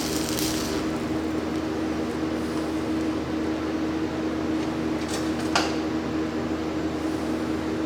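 Steady machine hum with a couple of steady tones. A hiss stops about a second in, and a brief sharp sound comes about five and a half seconds in.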